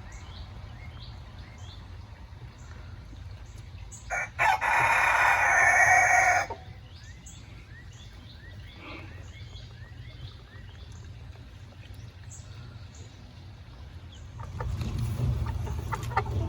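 A rooster crowing once, a loud drawn-out call of about two seconds starting about four seconds in. Short high chirps repeat before and after it over a low rumble, which swells near the end.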